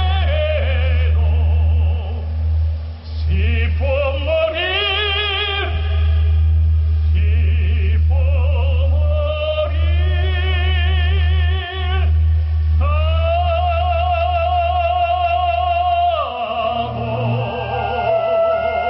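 A man singing into a handheld microphone over a musical accompaniment, with long held notes and a wide vibrato. About three-quarters of the way through, the voice stops and the accompaniment carries on alone.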